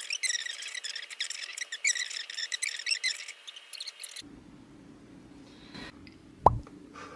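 A voice on a video call pitched up into high, squeaky chipmunk-like chatter with its low end cut away. It cuts off abruptly about four seconds in, leaving faint room tone, and then a single sharp click.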